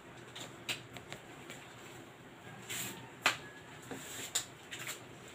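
Light handling noises: scattered small clicks and a short rustle, with one sharper click about three seconds in.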